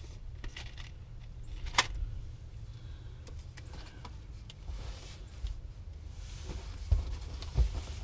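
Scattered clicks and knocks of hands and tools working on the underside of a car, over a low steady hum. A sharp click about two seconds in and two louder knocks near the end.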